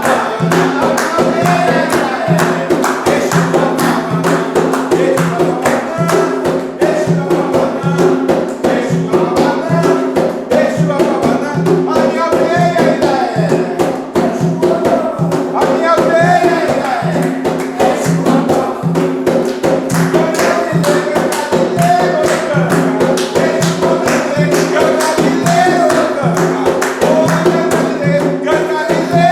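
Ritual chant (ponto) sung over fast, steady hand-drumming with some jingling percussion; the singing line wavers above a sustained low drone.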